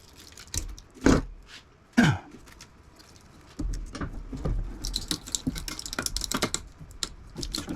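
Parts of a window air conditioner being worked apart by hand: two sharp knocks about a second apart, then a long run of quick rattling clicks.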